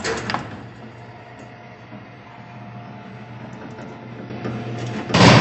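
Sound effect of a barred prison cell door rolling shut: a steady mechanical rumble with a low hum that slowly grows louder, then a loud crash begins near the end.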